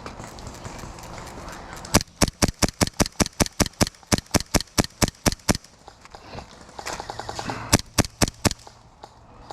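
Airsoft gun firing a rapid string of sharp cracks, about five shots a second for roughly three and a half seconds, then four more shots a couple of seconds later.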